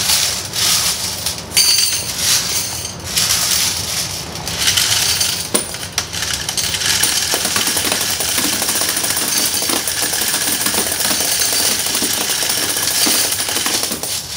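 Coin-counting machine running with laundromat quarters, a dense, steady clatter of coins passing through it as they are pushed in from its tray. There are louder spills of coins in the first few seconds.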